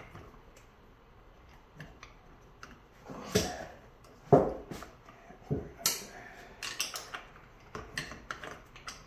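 Scattered metallic clinks and knocks of a piston ring compressor and hand tools against a Mercury L6 outboard's cylinder block as a piston and its rings are worked down into a bore. The loudest knock comes about four seconds in.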